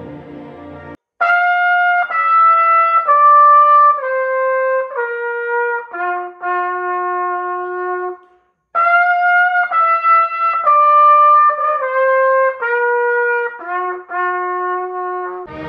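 Solo silver-plated trumpet playing a phrase of separate notes that steps downward and ends on a long low note, then the same phrase again after a short pause. Orchestral music cuts off about a second in, just before the trumpet starts.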